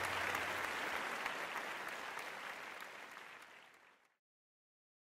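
Audience applauding, the clapping fading away steadily before the sound cuts off to dead silence about four seconds in.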